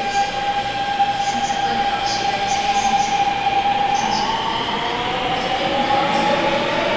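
Daegu Metro Line 1 subway train running through the underground station, loud and continuous: its electric motors whine on a steady tone that, in the second half, splits into several tones gliding upward, over the rumble of the wheels on the rails.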